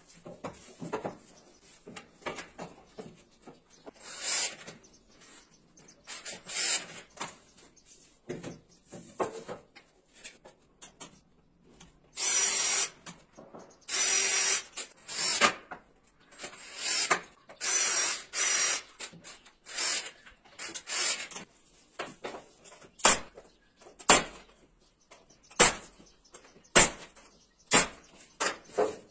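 Hand tool scraping or rasping across wood in repeated strokes about a second long, then a run of sharp knocks roughly once a second near the end.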